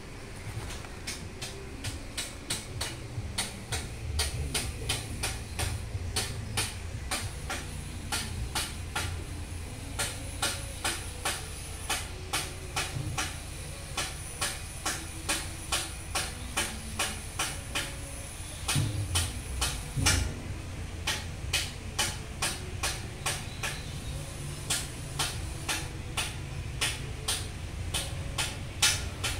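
A small machine running, with a regular ticking of about three clicks a second over a low hum.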